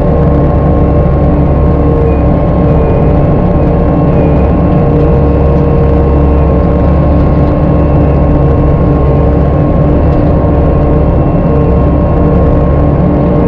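Virnig disc mulcher running on its carrier machine: a loud, steady engine drone with a constant whine over it.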